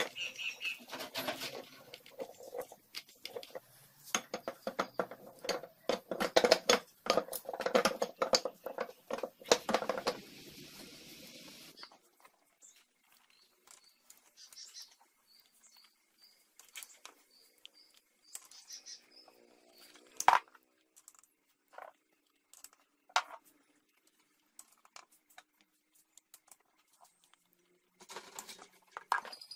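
Irregular clicks and taps, dense and busy for about the first twelve seconds, then thinning to scattered single clicks. A short run of faint high chirps comes around the middle.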